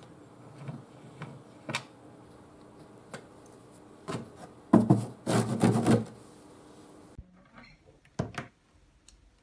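A hand rubbing and scratching across a rope-wrapped cat scratching board fixed to a wooden desk side, giving a few loud rasping scrapes in the middle. Before them come a few faint clicks from a hex key on the mounting screw, and near the end a few short, sharp scratches.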